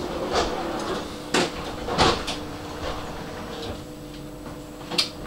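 Tram interior heard from the front cab while running slowly on street track: a steady electric hum with several sharp knocks and rattles, the loudest about two seconds in and another near the end.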